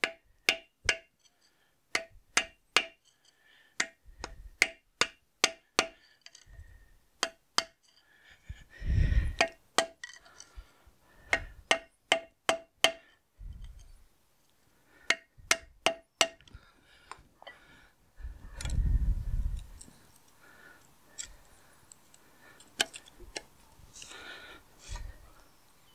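Ball-pein hammer striking a steel punch held against the rusted final drive housing of a David Brown 990 tractor, to knock a rusted-in part loose. The blows come in quick runs of sharp, ringing metal strikes with short pauses and stop about 16 seconds in, leaving a few lighter clinks. Two low muffled rumbles come around 9 and 19 seconds in.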